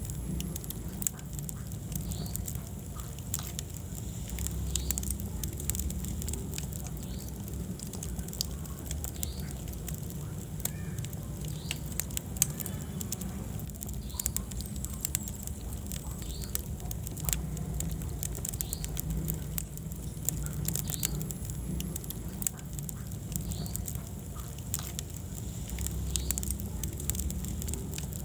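Wood fire burning in a fireplace, crackling with many sharp irregular pops over a steady low rumble, one louder pop about halfway through.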